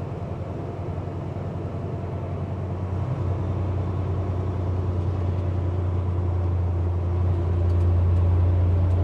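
Semi truck's diesel engine running under load with a steady low drone, growing louder over the last few seconds as the truck picks up speed.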